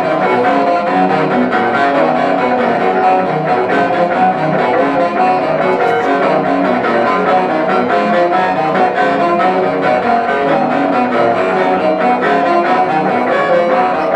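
Instrumental music playing steadily with no singing: a dense mix of pitched instruments holding and changing notes throughout.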